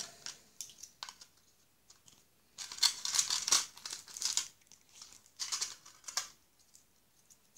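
Folded paper being unwrapped by hand, crinkling and rustling: a few light handling clicks, then a longer, louder burst of crinkling about three seconds in and a shorter one near six seconds.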